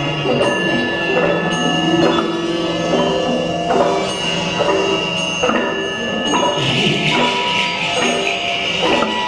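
Several Auris lyres plucked together in a slow, free group improvisation, their notes ringing on and overlapping, with a high metallic tone sounding steadily above them. About two-thirds of the way through, a shimmering jingle joins in.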